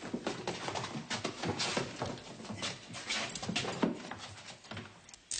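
Men panting and grunting as they struggle, with irregular gasps and scuffling, dying down near the end.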